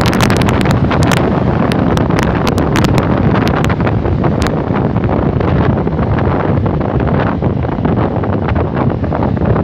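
Heavy wind rushing over the microphone of a phone carried on a moving scooter, a dense steady rumble. A run of sharp clicks comes in the first few seconds.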